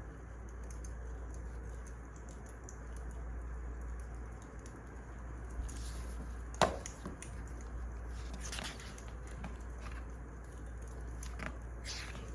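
Wood fire crackling, with a steady low rumble of the burning logs and scattered sharp pops. One loud snap comes a little past the middle, and a few smaller ones follow near the end.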